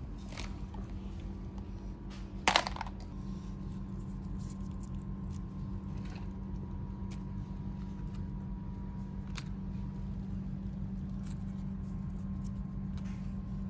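Small plastic and clay toys being handled and set down on artificial grass: scattered light clicks and taps, with one louder clatter about two and a half seconds in, over a steady low hum.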